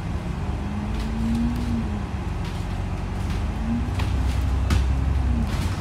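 Inside a bus cruising on a motorway: a steady low engine and road rumble, with a faint whine that swells and drops away twice and a few light rattles.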